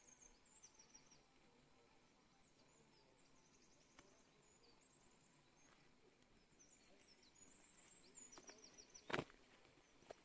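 Near-silent outdoor quiet with faint, high, twittering bird calls repeating throughout. A few soft ticks come after about eight seconds, then one short louder thud about nine seconds in.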